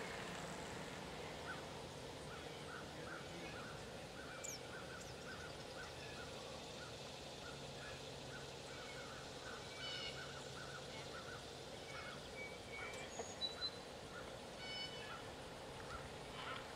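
Faint outdoor ambience with birds calling: a quick, steadily repeated chirping through most of the stretch, with a few scattered higher calls and a short falling whistle.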